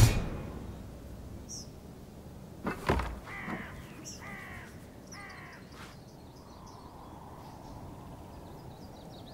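Two sharp knocks, then a bird calling three times in quick succession, each call short and falling in pitch, over a faint steady hiss.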